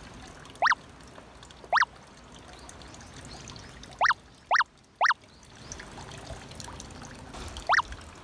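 Six short rising electronic blips, an editing sound effect that pops up with each caption character, the first about half a second in, three in quick succession around the middle and one near the end. Beneath them a faint steady rushing noise like trickling water.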